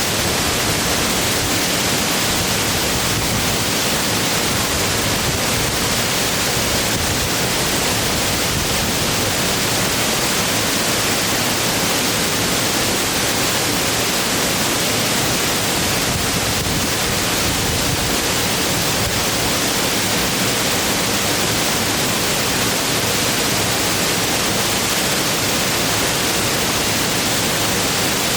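Waterfall: a steady, unbroken rush of falling water, with no changes or separate splashes.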